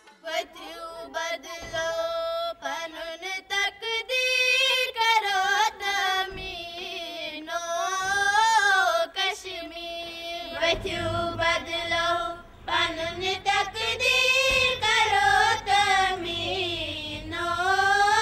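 A song sung by high voices, a slow melody with long, wavering notes. A low accompaniment comes in about ten seconds in.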